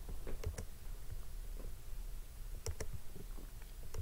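Computer mouse clicks, a few sharp separate ones, made while pressing keys on an on-screen calculator.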